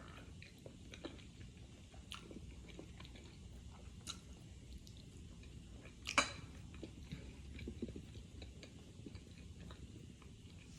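Close-miked chewing and wet mouth sounds of a person eating fufu with banga soup, with scattered soft smacks and clicks. A single sharper click about six seconds in is the loudest sound.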